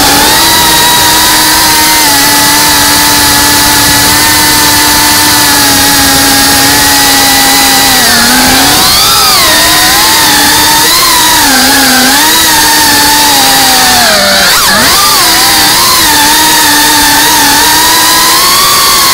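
Brushless motors and propellers of an FPV quadcopter whining as heard from its onboard camera, over a steady hiss. The pitch holds level for the first several seconds, then wavers up and down with throttle changes, with a sharp drop and quick climb about two-thirds of the way through.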